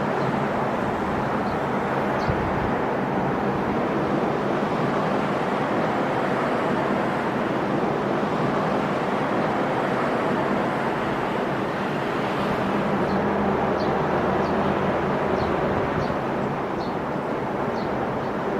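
Sea waves breaking and washing onto the shore in a continuous surf roar, swelling slightly partway through.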